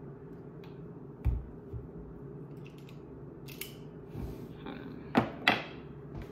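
Metal ice cream scoop working peanut butter out of its jar: a dull knock about a second in, scattered scraping, then two sharp clicks near the end as the scoop is emptied into the bowl.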